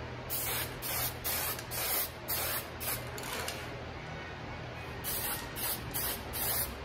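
Aerosol can of cherry-red wood toner spraying in a quick series of short hissing bursts, with a pause of about a second and a half about halfway through. Each burst mists toner past a loosely held card mask to blend the colour into the wood finish.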